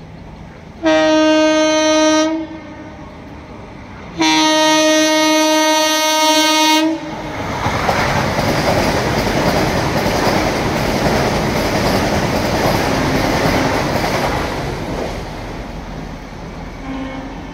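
Vande Bharat Express electric train set sounding its horn in two blasts, a short one and a longer one, then rushing past at full speed with its wheels clattering over the rail joints, the noise fading away after it passes.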